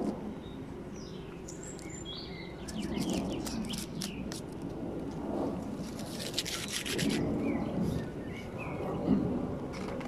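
Small birds chirping in the background over the rustle and scrape of hands and bee-suit fabric working at a wooden hive box. A denser burst of rustling comes about six to seven seconds in.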